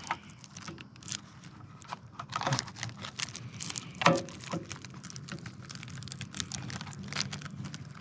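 Clear plastic parts bag crinkling in gloved hands, with scattered small clicks and taps of plastic parts, the sharpest about four seconds in.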